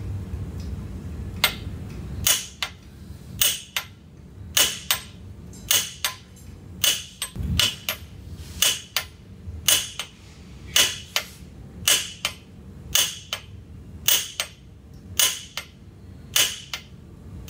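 A mallet strikes a piece of stock held against the drive shaft of a Mud Buddy mud-motor lower unit, hammering the shaft forward out through its bushing. The blows are sharp and come in a steady run of about two a second, starting about a second and a half in.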